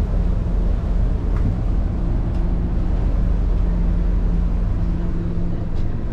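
Passenger ferry's engine running steadily under way, a low hum with a few steady tones beneath a noisy rush.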